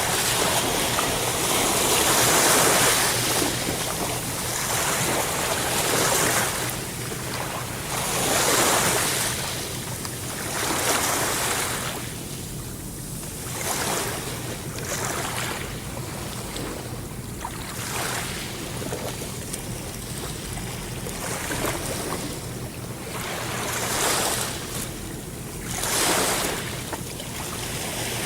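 Sea waves breaking and washing on the shore, the surf swelling and falling back every two to three seconds over a steady low rumble.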